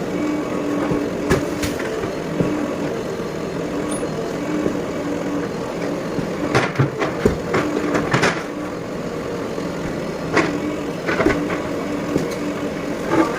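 Diesel engine of a JCB 3DX backhoe loader running steadily, with scattered sharp knocks and clatters, a cluster of them about halfway through.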